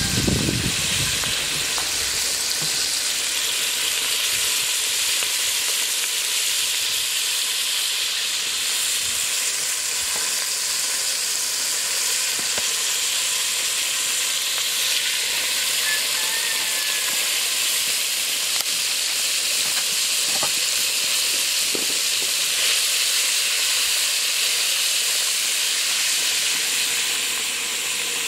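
Floured chicken pieces frying in hot oil in a large pot: a steady sizzle.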